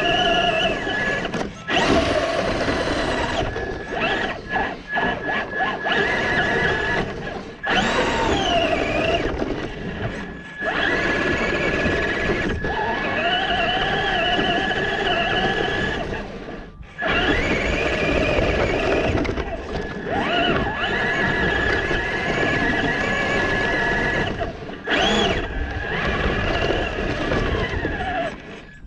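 Traxxas Slash 2WD RC truck's electric motor and geartrain whining. The pitch rises and falls as the throttle is worked, with short breaks where it lets off, as the truck strains to push light snow.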